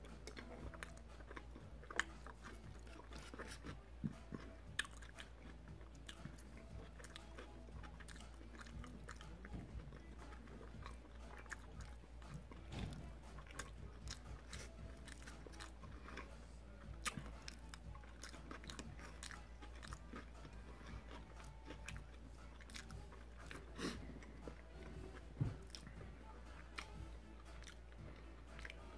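Faint, close-miked chewing with scattered small clicks and taps as a plastic fork scoops up bites of burrito.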